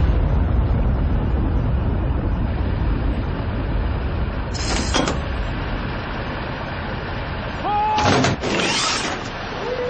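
Tank engine running with a steady low rumble. A short burst of noise comes about halfway, and a louder clatter and hiss near the end as the big clay target launcher is worked.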